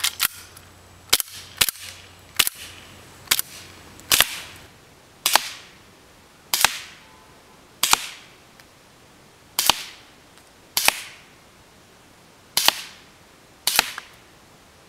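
KWC Desert Eagle CO2 blowback airsoft pistol fired in semi-automatic: about a dozen sharp shots, roughly one a second and unevenly spaced.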